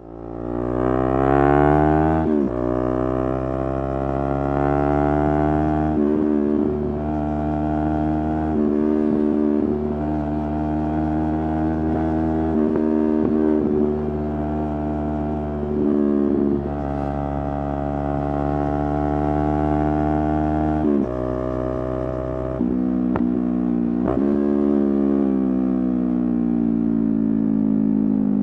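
Yamaha R3's 321 cc parallel-twin engine pulling hard through the gears: the pitch climbs, then drops sharply at each upshift, about five times. Near the end the revs ease off and the pitch slowly falls as the throttle is rolled off.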